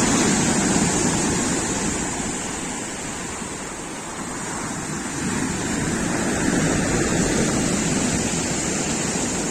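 Stormy Black Sea surf breaking on the beach: a continuous rush of waves that eases off about halfway through and swells again.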